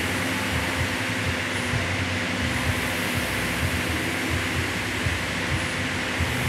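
Air-resistance rowing machine's fan flywheel whirring steadily under the rower's strokes, over a constant hum.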